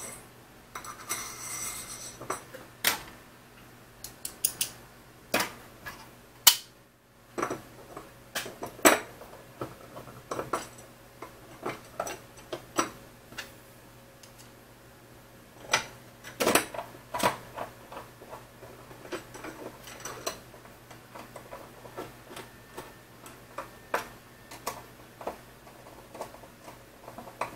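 Irregular small clicks and clinks of hand assembly: steel screws and a screwdriver knocking against an aluminium extrusion and a plastic bracket as the bracket is screwed on by hand, with a few sharper knocks among them.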